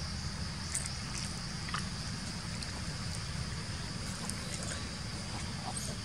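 Steady outdoor background noise: a low rumble under an even hiss, with a couple of faint clicks.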